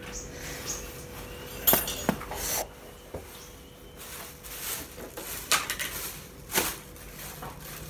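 Kitchenware being handled at a stove: scattered clinks and knocks of pots, pans and utensils. The sharpest knock comes about two seconds in, with a few more through the rest.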